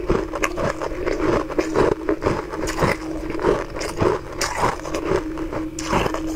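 Close-up crunching of frozen ice rings being chewed: irregular crisp cracks and crackles, a few each second.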